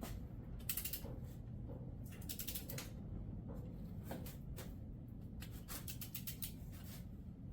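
Click-style torque wrench ratcheting on a small block Chevy cylinder head bolt: several short runs of rapid pawl clicks as the handle is swung back between pulls, while the bolt is brought to 25 foot-pounds on the first tightening pass.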